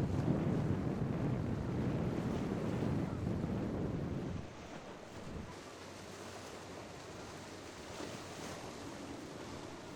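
Wind buffeting the microphone over waves and surf in an ocean inlet. The rumble of the gust cuts off about halfway through, leaving the steadier wash of the water.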